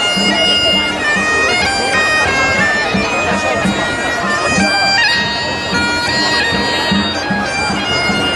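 A loud reed wind instrument, bagpipe-like, plays a stepping melody over a steady drum beat of about two to three strokes a second.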